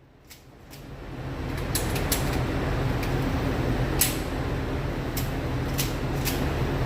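A steady low hum that fades in over the first second and then holds, with several light clicks scattered through it.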